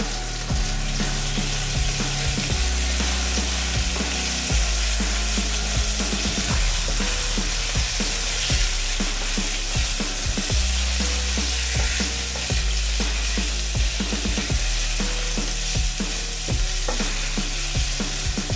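Beef chunks sizzling as they sear in hot oil in a stainless steel frying pan, stirred and turned with a wooden spoon. Background music with a steady bass line plays underneath.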